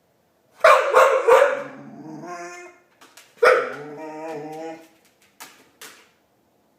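Pit bull making its Chewbacca-like noises. It gives three quick barks, then a long wavering drawn-out call, then another bark that runs into a second wavering call, with two short sounds near the end.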